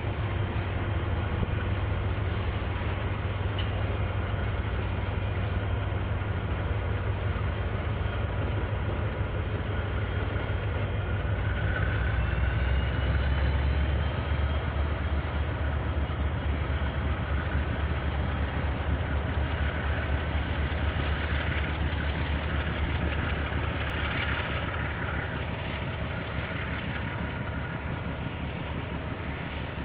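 KiwiRail diesel locomotive's engine rumbling low and steady as a train goes by, growing loudest about halfway through and then slowly fading.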